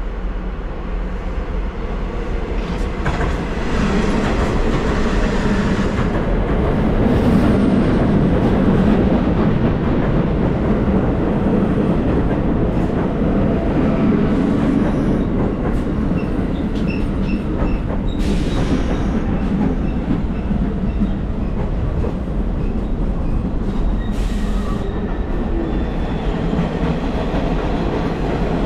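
A train running past on the rails: a long steady rumble of wheels and cars, loudest about a quarter of the way in, with faint high-pitched wheel squeals in the second half.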